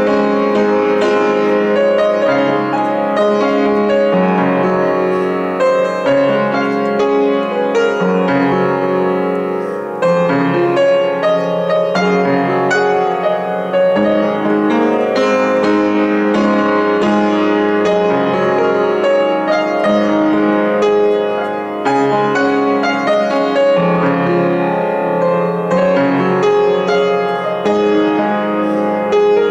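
Upright piano played solo: a flowing chord progression with melody, notes struck and sustained continuously, with short breaks between phrases about ten seconds in and again about twenty-two seconds in.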